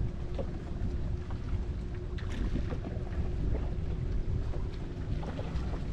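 Wind buffeting the microphone on an open bass boat: a low, steady rumble with a few light ticks. A faint steady hum drops out about halfway through.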